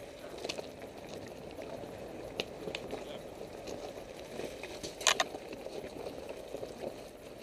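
A Mitsubishi Pinin's tyres rolling slowly over loose rocks, with stones crunching, clicking and cracking under the wheels over the steady low rumble of the moving car. About five seconds in, a stone gives a loud, sharp double crack.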